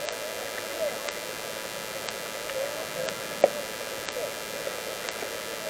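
Steady recording hiss with faint distant murmuring, and one sharp knock about three and a half seconds in.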